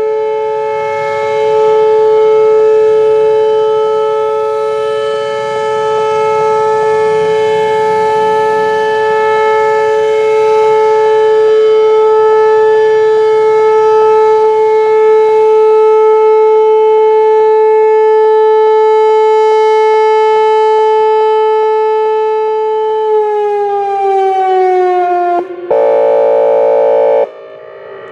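Whelen Vortex R4 electronic outdoor warning siren sounding its steady Alert tone, one loud held pitch, which glides down in pitch a little over 20 seconds in as the signal ends. Just after, the siren's air-horn signal starts abruptly as a blaring, chord-like blast, breaks off briefly, then sounds again near the end.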